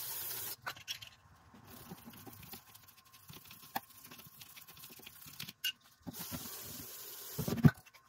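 An aerosol cleaner is sprayed onto a dirty throttle body in two hissing bursts, a short one at the start and a longer one about six seconds in. In between there is faint scratching as the throttle bore is scrubbed by hand, and a sharp thump comes just before the end.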